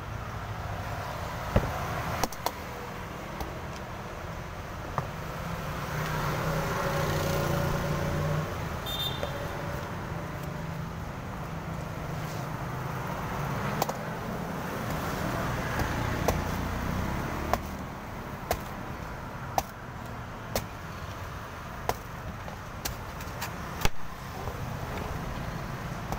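Cleaver chopping into the husk of a young green coconut: short sharp knocks, coming about once a second in the second half. Steady street traffic runs underneath, with vehicles passing twice.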